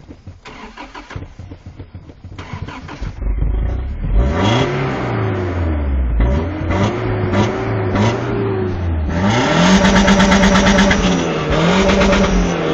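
Car engine cranking on the starter, catching about three seconds in, then revved up and down several times with the gas pedal, the highest rev about ten seconds in.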